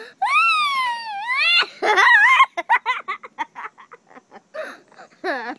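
A young boy squealing in long, high, gliding shrieks, then a run of quick short giggles, and one more short falling squeal near the end.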